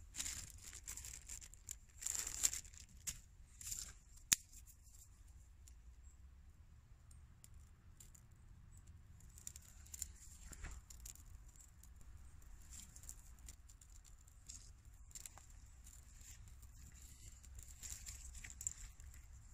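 Dry wood shavings and kindling rustling and crinkling as a mittened hand arranges them over a small fire, with one sharp snap about four seconds in. After that there is only faint, scattered crackling from the small fire, fed by a paraffin-wax fire-starter puck, as it catches in the kindling.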